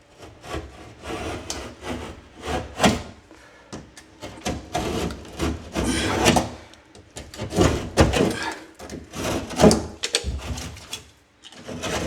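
Irregular scraping and rubbing strokes on a piece of drywall as a patch outline is marked out freehand, with some knocks as the board and tools are handled.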